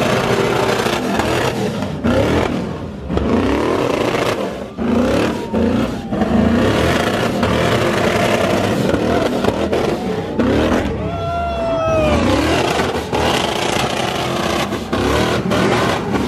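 Car engines of a Chevrolet Silverado pickup and a Chrysler 300 sedan revving hard during burnouts and donuts, the revs rising and falling over and over, with tyre noise on wet pavement.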